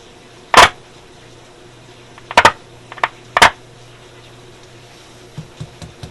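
Loud pops and crackles from the Sparton Model 67 tube radio's speaker over a steady low hum: four big pops in the first three and a half seconds, then a few smaller clicks near the end, as a jumper wire makes and breaks contact in the live set.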